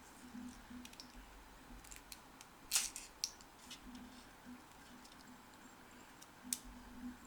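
Light handling clicks and ticks, with a sharper snap about three seconds in and another near the end, over a faint low hum.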